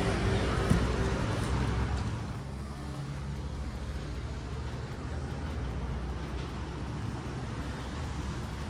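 Steady street traffic noise, a low rumble of passing vehicles, a little louder in the first two seconds.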